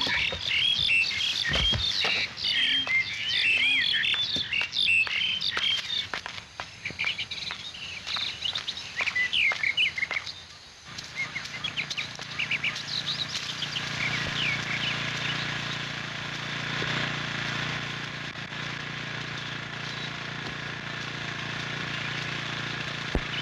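Many birds chirping in quick, overlapping calls, with scattered short rustles. About eleven seconds in, the sound cuts to a quieter, steady outdoor ambience with a low hum and only occasional chirps.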